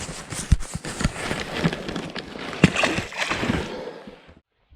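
Water splashing and sloshing close by, with several sharp knocks through it; the sound cuts off suddenly just before the end.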